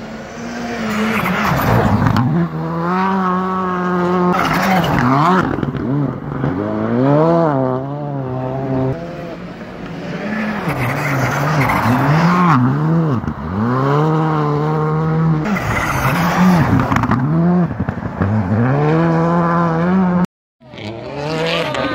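Ice-racing car engine revving hard and repeatedly, its pitch swinging up and down with each throttle blip and gear change, with bursts of rushing noise from the tyres. The sound drops out for a moment near the end.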